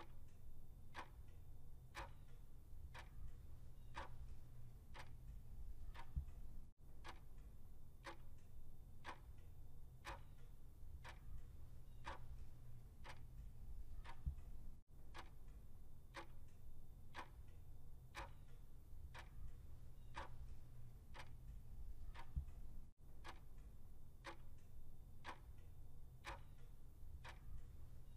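Clock-ticking countdown timer sound effect, about two ticks a second, with a steady low hum underneath.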